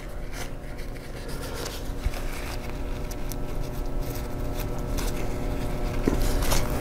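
An alcohol swab rubbing and scraping dried thermal paste off a laptop CPU die: a run of small, irregular scratchy strokes that grows louder toward the end, over a faint steady hum.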